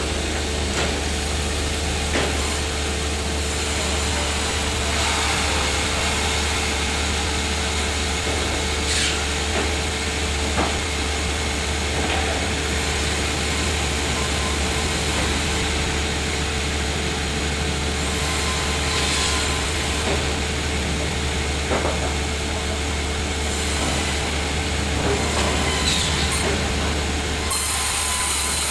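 Sawmill machinery running steadily: a low motor hum and a constant whine under a rush of saw noise, with a few brief knocks.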